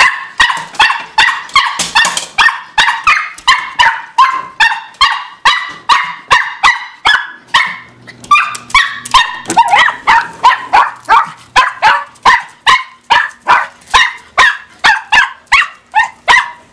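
Miniature Pinscher barking nonstop in fast, high-pitched barks, about three a second, in excitement at being let outside.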